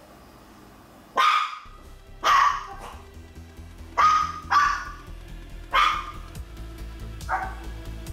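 Maltese dog barking repeatedly: about six sharp, separate barks, roughly one every second or so.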